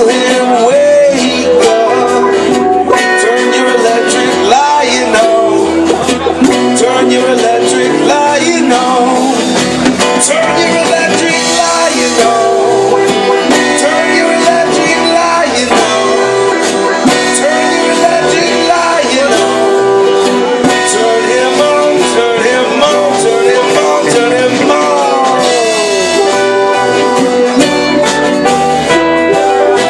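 Live band playing an instrumental passage: guitar lead with bent, sliding notes over steady drums.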